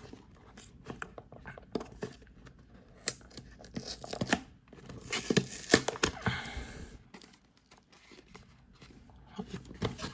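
Strong packing tape and cardboard packaging being torn and pulled open, with irregular rustling, crinkling and sharp clicks. The activity is busiest from about four to seven seconds in.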